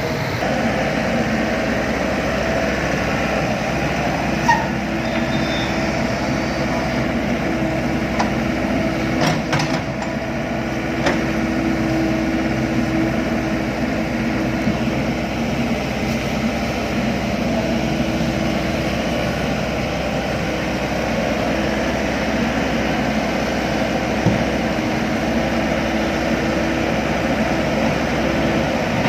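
Diesel engine of heavy construction machinery running steadily, with a few short knocks or clanks about 4, 9 and 11 seconds in.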